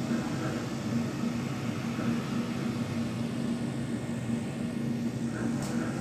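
Glass exterior elevator car running steadily on its way down, a constant low hum over a soft hiss, with a faint tick near the end.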